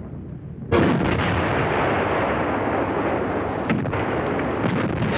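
Artillery gun firing: a sudden loud blast about two-thirds of a second in, followed by a long, dense rumble of noise, with a lesser report near the end.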